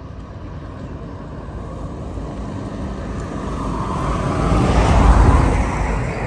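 A road vehicle passing by: a rushing, rumbling noise that grows steadily louder, peaks about five seconds in, then starts to fade.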